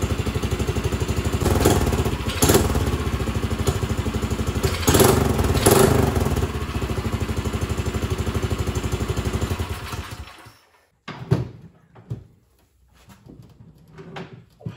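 Small petrol engine of a Beaverdam long-tail mud motor running with a fast, even firing beat and a few short revs in the first six seconds, then stopping abruptly about ten seconds in. Several hard thumps follow, the loudest just after eleven seconds, as the motor is set down on a wooden bench.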